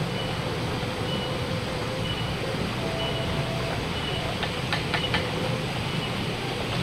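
Steady rushing of a shallow forest stream, with a faint high chirp coming back about once a second and a few light clicks about four and a half to five seconds in.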